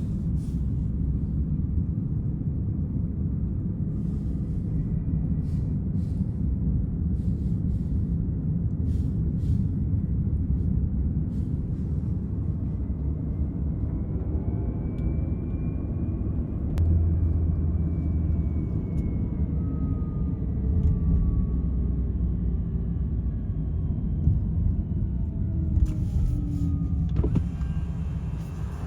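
Cybertruck driving: a steady low rumble of road and tyre noise. From about halfway through, faint whining tones glide up and then down in pitch.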